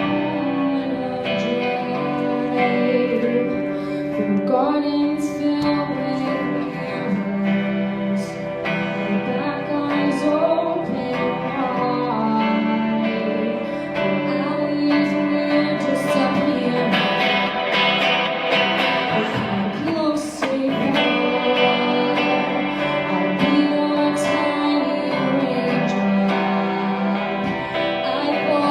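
A song played on guitar with singing: steady strummed and plucked guitar with a voice over it.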